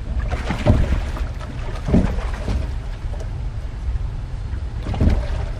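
Steady low wind rumble on the microphone, with three short louder sounds standing out about a second in, at two seconds and near the end.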